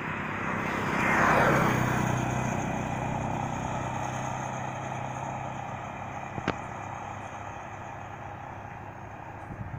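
A road vehicle passing close by, loudest about a second and a half in as its pitch drops, then its engine fading away. A single sharp click about six and a half seconds in.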